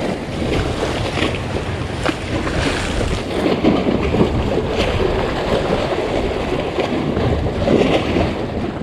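Choppy waves slapping and splashing against a concrete sea wall, with a splash every second or two over a steady wash of water, and wind buffeting the microphone.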